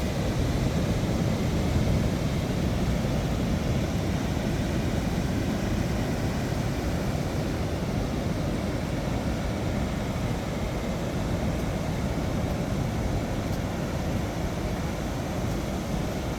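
Steady, deep rushing noise of wind on the microphone and ocean surf, with no clear breaks or single events.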